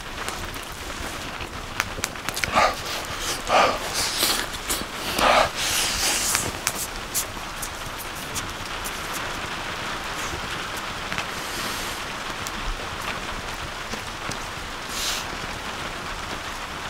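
People eating close to the microphone: chewing and breathing sounds with small clicks of utensils, most of them in the first several seconds, over a steady background hiss.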